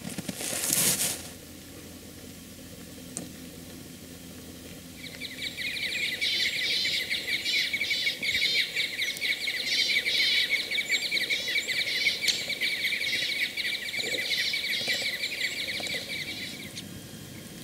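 A flock of crossbills in spruce trees calling, a dense, continuous chatter of quick high chirping notes that starts about five seconds in and stops near the end. A brief rustling noise comes about a second in.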